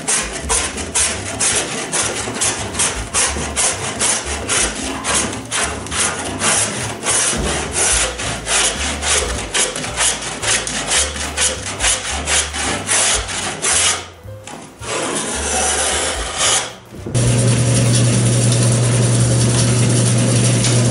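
A block plane shaving the edge of a 5/8 in plywood pattern in rapid short strokes. After a short break, a bandsaw motor starts about three-quarters of the way in and runs with a steady hum.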